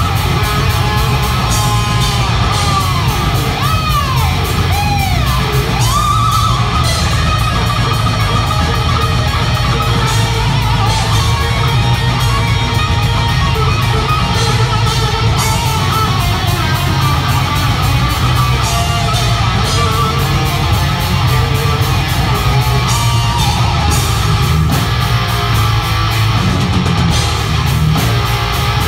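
Heavy metal band playing live, loud: distorted electric guitars, bass and drums. A few seconds in, a guitar line slides up and down in pitch several times.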